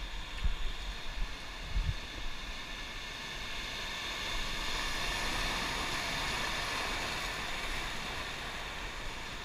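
River rapids rushing, a steady hiss of whitewater that swells about halfway through, with a couple of dull thumps in the first two seconds.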